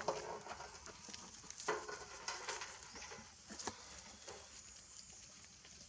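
Monkeys making short calls, with scattered clicks and scuffles over a steady high hiss. The calls bunch in the first half and thin out toward the end.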